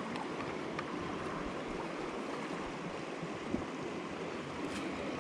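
Sea water washing and lapping against shoreline rocks, a steady rushing wash, with a few faint ticks over it.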